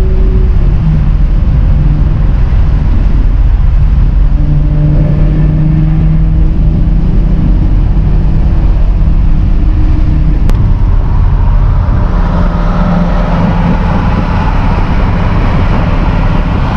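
1967 Ford Mustang fastback's engine droning steadily at highway cruising speed, heard from inside the cabin over heavy road and wind noise. About twelve seconds in, the wind noise grows louder.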